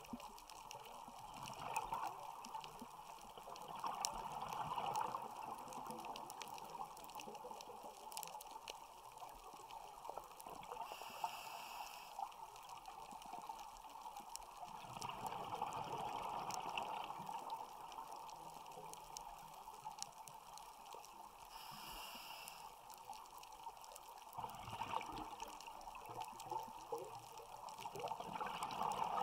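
Scuba diver breathing on a regulator, heard underwater: twice a short hiss as air is drawn in, and several seconds of exhaled bubbles gurgling away after each, in a slow cycle of about ten seconds.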